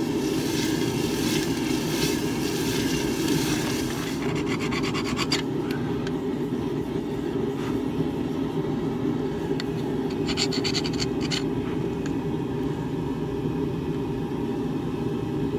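Red-hot steel plunged into a bucket of water, sizzling for the first few seconds of the quench. Then quick scratching, rubbing strokes twice as the scale is scrubbed off with an abrasive to bare metal for draw tempering, over a steady low drone.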